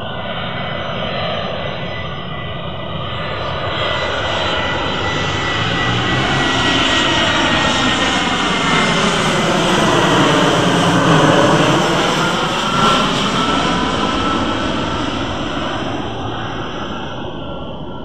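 An Airbus A320-214 airliner's CFM56-5B turbofan engines pass low overhead on approach to land. The jet noise grows steadily louder to a peak about eleven seconds in, sweeping down in tone as it passes over, then fades as the plane moves away.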